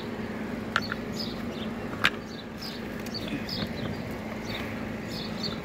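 Outdoor background: a steady low hum with faint, short high chirps and two sharp clicks, about one and two seconds in.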